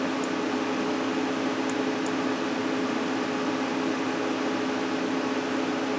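Steady mechanical hum with two constant low tones over an even whirring hiss, unchanging throughout, like a running fan or motor.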